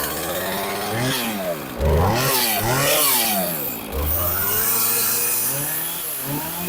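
Husqvarna 450 two-stroke chainsaw engine running, revved up and down several times in quick throttle blips, then settling to a steadier speed near the end. The saw has just been brought back to running after sitting for a long time.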